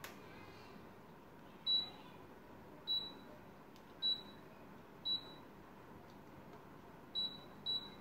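Samsung wall-mounted split air conditioner's indoor unit beeping six times, one short high beep for each press of the remote's temperature-up button as the setpoint steps from 16 to 22. A steady low hiss from the running unit lies underneath.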